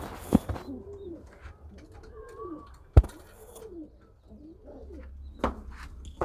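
Domestic pigeons cooing, a series of low rising-and-falling coos. A few sharp knocks come between them, the loudest about halfway through.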